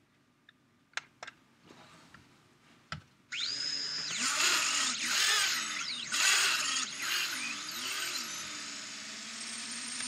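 Tiny whoop micro drone's motors and propellers spinning up about three seconds in, a high whine that rises and falls in pitch several times as the throttle is worked. A few sharp clicks of the joystick buttons come before it.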